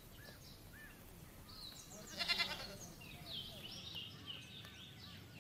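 One short, quavering bleat about two seconds in, with small birds chirping around it.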